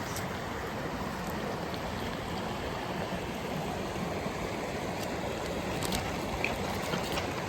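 A river rushing steadily, an even wash of flowing water with a few faint splashes.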